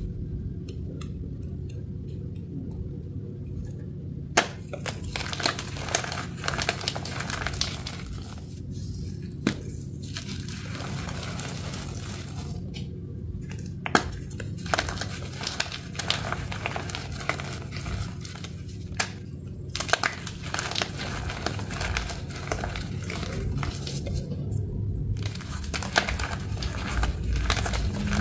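Gym chalk balls and loose chalk powder being squeezed and crushed by hand: dry crunching and crackling in spells, with a few sharp cracks and short pauses between handfuls, starting a few seconds in.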